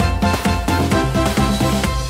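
Background music with a steady beat and changing pitched notes.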